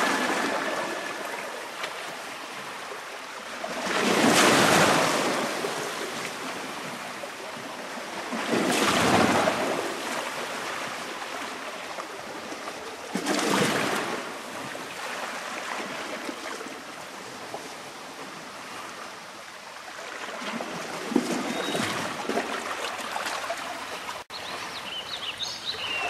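Sea waves breaking and washing in, with three big swells about four and a half seconds apart and then a lower, steadier rush of surf.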